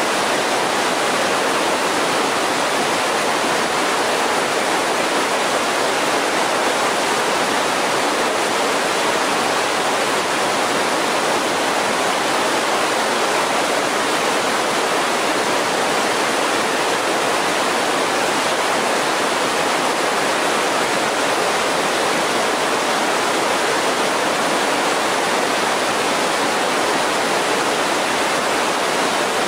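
Mountain creek rushing over boulders in white-water rapids: a steady, loud hiss of running water with no change.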